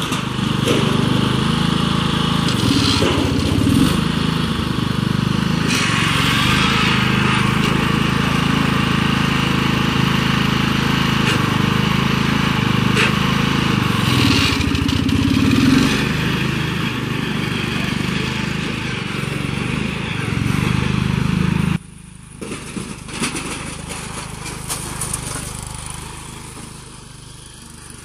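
Bolens G-14 garden tractor engine running steadily as the tractor drives and pushes with its plow blade. About three-quarters of the way through the sound drops abruptly and continues much quieter.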